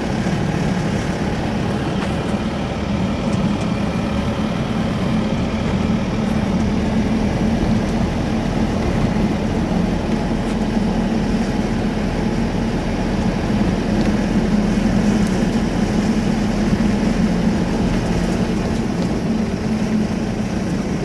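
Steady engine hum and road noise of a motor vehicle cruising at constant speed on a paved road.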